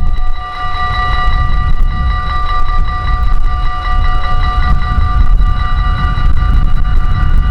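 A train running by, with several steady whining tones over a heavy low rumble.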